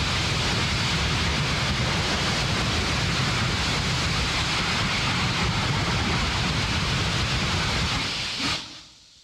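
Raptor rocket engine test-firing into a water-cooled steel plate: a steady, loud, deep rumble laced with hiss, which stops suddenly near the end.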